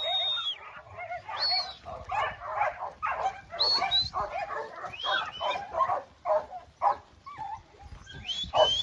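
Sheepdog barking and yelping over and over in short, closely packed calls, with a few brief high whistle-like notes.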